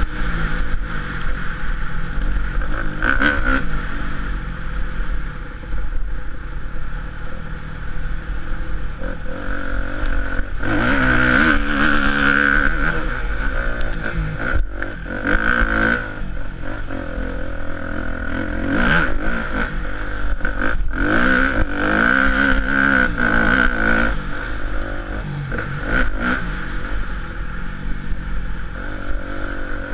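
Motocross bike's engine revving up and falling back again and again as it is ridden hard round a dirt track. Wind buffets the microphone throughout, and sharp clattering knocks come as the bike hits bumps.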